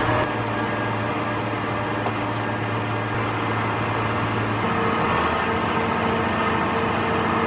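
Tractor engine running steadily with a low hum; its tone changes abruptly about four and a half seconds in.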